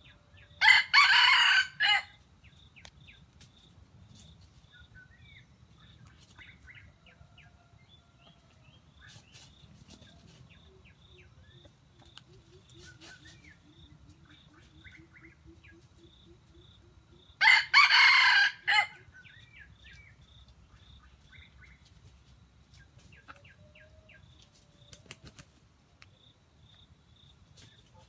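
Junglefowl rooster crowing twice, once near the start and again just past the middle, each crow about a second and a half long and ending in a short separate final note. Between the crows there are faint bird chirps and a faint, regular high ticking.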